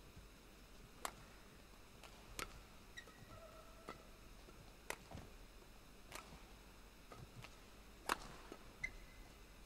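Badminton rally: sharp racket strikes on the shuttlecock every one to two and a half seconds, the loudest near the end, with a few short squeaks of shoes on the court.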